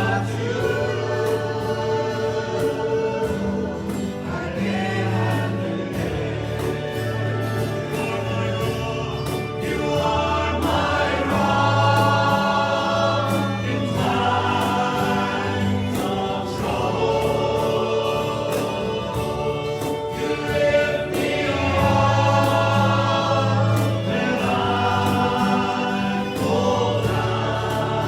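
Congregation singing a worship song together, with band accompaniment: sustained bass notes and a steady beat.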